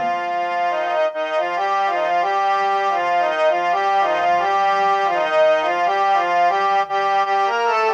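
Smartphone harmonium app sounding through the phone's speaker: a reedy, organ-like tone as a film-song melody is picked out key by key, with the notes changing about twice a second.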